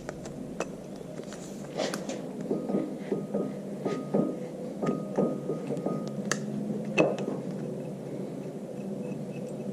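Steel bolts and lock washers being picked up and handled, giving a run of light metallic clinks and taps with a little ringing, and a louder clank about seven seconds in. A steady low hum runs underneath.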